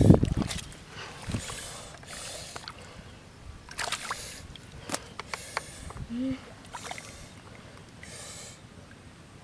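Hands splashing in a small pool of muddy water, loudest in the first half-second, then working wet clay mud with scattered squelches, swishes and soft clicks.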